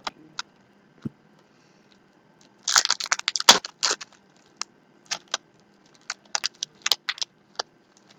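Basketball trading cards and packaging being handled: a burst of crinkling about three seconds in, then scattered sharp clicks and taps.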